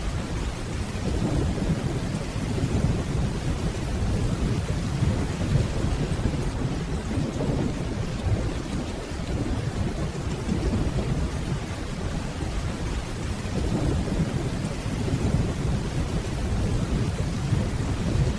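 Steady rainfall with low, distant rolling thunder rumbling beneath it, swelling twice and fading back into the rain.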